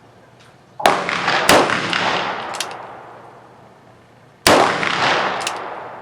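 Three gunshots from a single-action .45 Long Colt revolver, two close together about a second in and a third about four and a half seconds in, each followed by a long echo rolling away over the open range.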